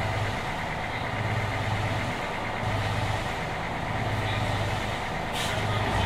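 Detroit Diesel 6V71 two-stroke V6 diesel of a 1980 Grumman Flxible 870 transit bus idling steadily, its low drone swelling and fading about once a second. A short hiss comes about five seconds in.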